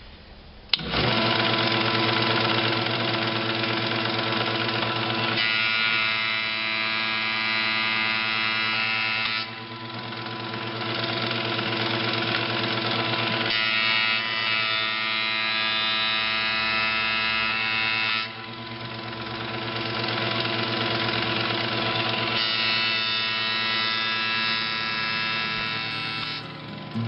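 Iida Mini Forte mini planer switched on with a click about a second in and running with a steady motor and cutterhead whine. Three stretches of about four seconds each take on a fuller, higher cutting sound, as boards are fed through and planed.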